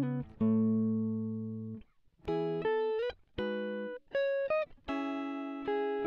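Background music: a solo guitar picking separate notes and short chords, with a couple of notes bent upward.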